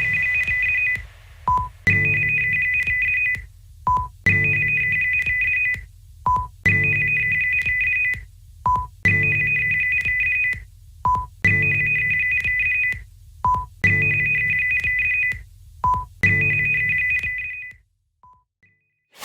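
Emergency alert tone: a loud two-pitch electronic beep about a second and a half long over a low buzz, each followed by a short lower blip, repeating about every two and a half seconds, eight times, stopping shortly before the end.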